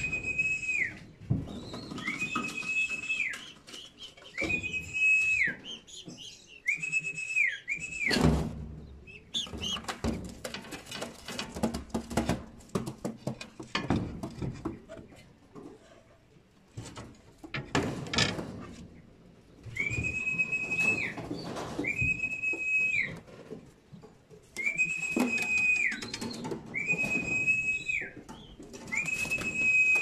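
Long, level whistles, each about a second long and dropping in pitch at the end, repeated in a run of five at the start and again near the end. In the middle there are scattered knocks and rattles instead.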